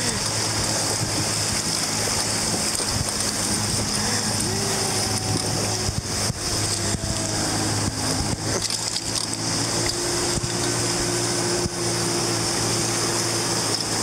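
Rushing white water of river rapids around an inflatable raft: a steady wash of noise.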